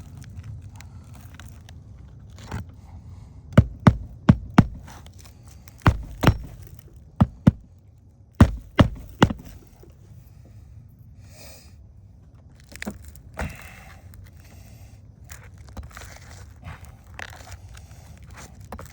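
Hammer driving roofing nails through asphalt shingles into the roof deck: about eleven sharp strikes in quick groups of two or three, with lighter knocks and scraping later on.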